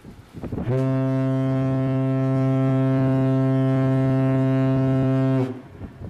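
A single long, low horn blast, steady in pitch, about five seconds long. It starts under a second in and stops abruptly near the end.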